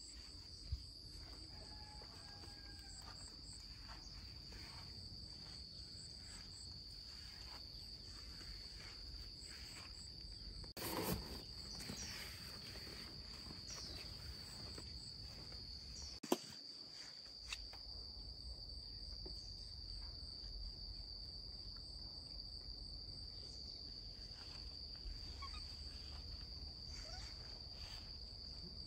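Insects trilling steadily outdoors in one high, unbroken tone, with fainter rows of short high chirps above it. A brief rustle comes about eleven seconds in and a sharp click about sixteen seconds in.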